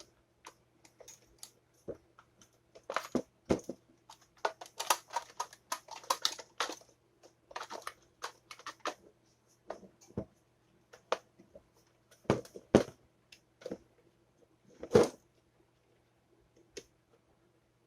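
Irregular clicks, taps and short scraping strokes from a toaster's parts being handled and worked on by hand, with a faint steady hum underneath.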